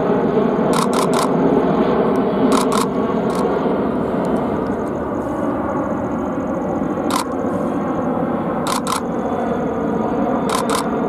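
Airbus A330-200 airliner's jet engines running steadily on final approach, passing low overhead. Over it, a camera shutter fires in quick bursts of two or three clicks, about five times.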